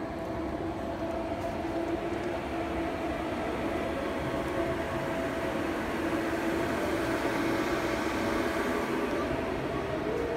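Steady mechanical drone: a continuous hum under a wash of noise, with no breaks, growing slightly louder toward the end.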